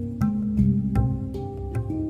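Hang drum music: a melodic loop of struck, ringing steel notes, several a second, each note ringing on into the next.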